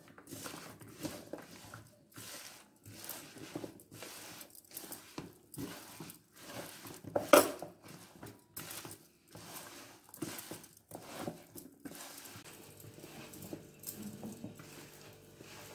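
A hand mixing raw cauliflower florets with dry flours and spice paste in a plastic bowl: irregular rustling, squishing strokes, with one sharper knock about seven seconds in. The strokes grow quieter near the end.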